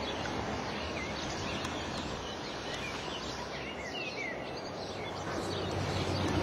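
Small birds chirping in short, quick notes over a steady open-air background. About five seconds in, a low engine rumble starts and grows louder.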